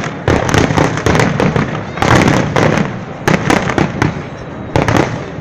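Fireworks exploding: rapid clusters of sharp bangs and crackles, several bursts close together, with echoing rumble between them.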